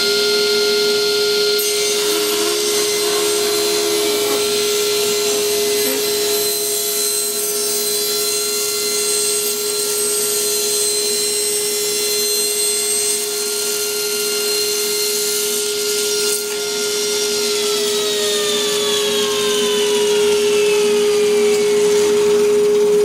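Table saw running steadily with a constant whine while cutting small wooden pieces down to size.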